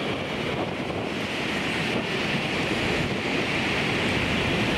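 N700-series Tokaido Shinkansen train running past at speed on a concrete viaduct: a steady rushing noise with a hiss on top, growing slightly louder.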